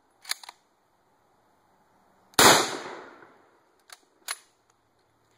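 A cut-down Mosin-Nagant M91/30 rifle in 7.62x54R: two sharp metallic clicks of the bolt being worked, then one very loud shot about two and a half seconds in whose echo dies away over about a second, then two more bolt clicks as the action is opened again.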